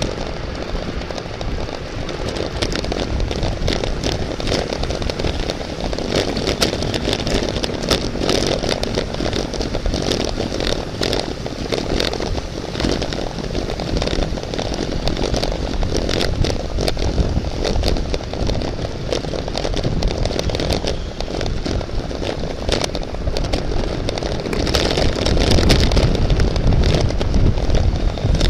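Steady wind rush and buffeting on a moving camera microphone with road rumble, crackling throughout, as a road bike rides at race speed. It grows louder near the end.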